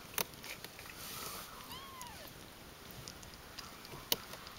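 A 17-day-old Ragdoll kitten gives one faint, short mew about two seconds in, rising and then falling in pitch. Two sharp clicks sound, one near the start and one near the end.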